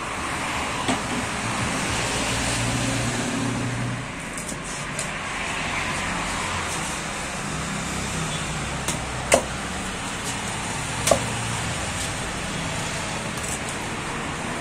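Steady road traffic noise, broken by a few sharp knocks of a knife meeting the wooden chopping block as tuna is cut; the two loudest knocks come in the second half.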